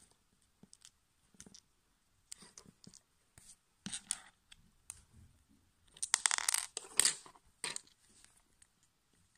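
Plastic Lego Technic differential parts, the housing and small bevel gears, clicking and scraping as they are handled and fitted together by hand. Scattered small clicks, with a denser, louder run of clicking and scraping about six to seven seconds in.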